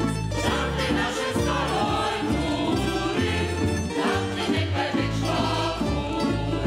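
Tamburica band of plucked tamburas and a double bass playing a lively Croatian folk tune, with a group of voices singing along.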